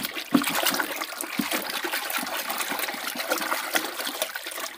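Water sloshing and splashing in a tub as a hand swishes a toy car vigorously back and forth to wash it. It starts suddenly and tails off near the end.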